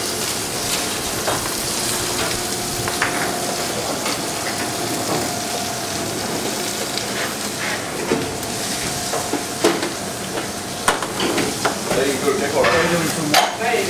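Busy restaurant kitchen ambience: a steady sizzling hiss, with a steady tone for a few seconds and sharp clinks of dishes and utensils in the second half.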